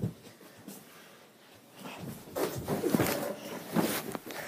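Handling noise from the phone being picked up and moved close to the microphone: irregular rustling and bumps starting about two seconds in, after a short knock and a quiet stretch.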